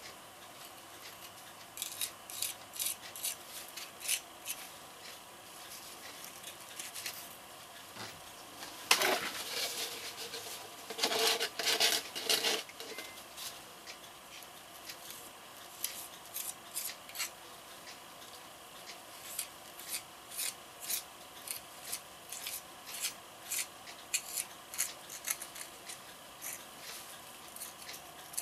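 A small metal blade scraping and smoothing the concrete patching on a concrete statue's leg in short, quick strokes, with two longer, louder scraping passes about a third of the way in.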